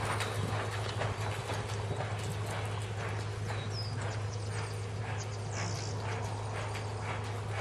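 Hoofbeats of a reining mare being ridden: a regular clip-clop of about two to three footfalls a second, over a steady low hum.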